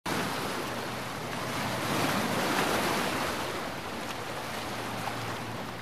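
Sea surf: a steady rush of waves washing onto a shore, swelling slightly midway and cutting off abruptly at the end.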